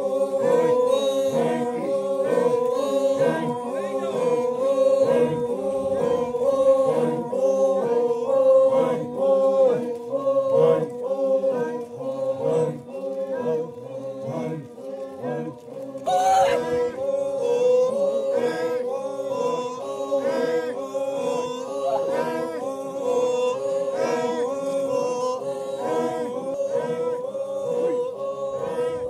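Group of men chanting in unison, a rhythmic call over a steady held note that pulses about twice a second. A brief sharp shout rises above it about 16 seconds in.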